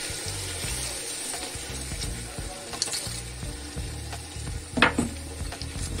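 Caramelized sugar syrup, with water just added, bubbling and sizzling in a pan while it is stirred with a silicone spatula; the hardened sugar is being stirred until it dissolves. One sharp clack about five seconds in.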